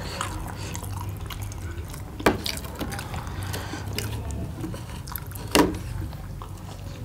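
Wet eating sounds of chicken taipo momos being dipped into a yellow sauce and bitten: a patter of small squelchy, sticky mouth and food noises, with two sharper clicks, one about two seconds in and one about five and a half seconds in.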